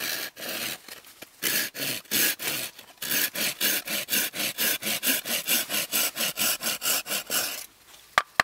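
Hand saw cutting across a wooden spoon blank in quick, even back-and-forth strokes, about five a second, making the stop cuts before the waste is split off with an axe. The sawing stops near the end and is followed by two sharp clicks.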